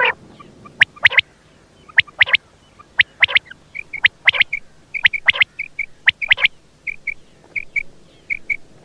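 Quail calling: a run of short, sharp calls, mostly in quick pairs, about one or two a second, with softer short double chirps through the second half.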